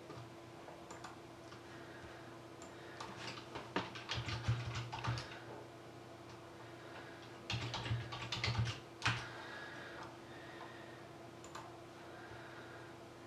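Typing on a computer keyboard in two quick bursts of keystrokes, one a few seconds in and another past the middle, over a faint steady hum.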